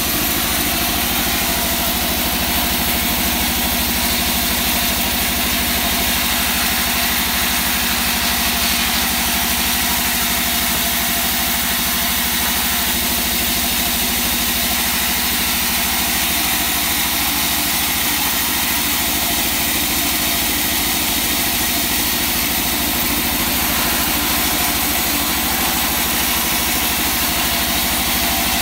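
Large sawmill band saw running steadily while dark wangkal boards are fed through it; the sound is an even machine hum with a hiss that does not change.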